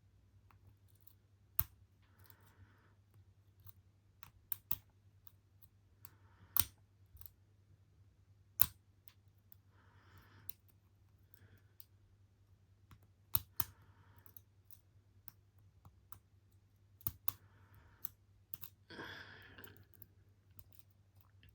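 Lock picks clicking and scraping inside the tight, bent keyway of a brass pin-tumbler padlock as it is picked, with sharp clicks at irregular intervals.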